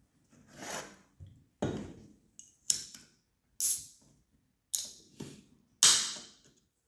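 Aluminium soft-drink can being opened by hand: a series of sharp clicks and snaps as fingers work the pull tab, the loudest about six seconds in as the tab gives.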